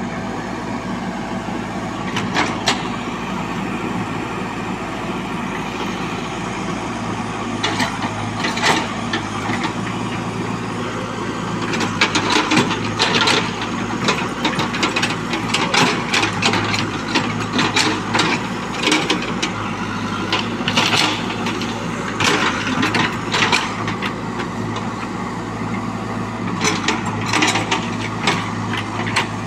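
JCB 3DX backhoe loader's diesel engine running steadily as the backhoe digs in wet soil, with repeated short knocks and scrapes of the bucket and arm, most frequent from about halfway through.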